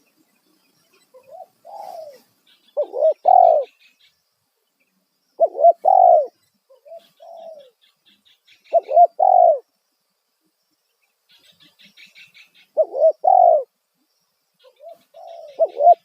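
Spotted dove (tekukur) giving its loud cooing call, the 'kuk satu' type, repeated about every three seconds. Each phrase is a soft short note followed by two loud coos. Faint high chirps of small birds sound between the phrases.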